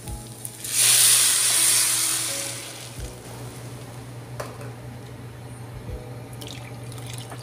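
Water poured into a hot pot of butter-toasted rice and carrot, hissing and sizzling loudly as it hits the hot pan: the hiss swells about a second in and dies away over the next second or two, leaving a low steady background with a few small knocks.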